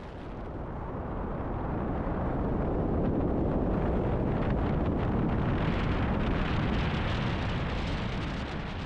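Wind buffeting the microphone: a loud, steady rushing noise that swells through the middle and eases near the end.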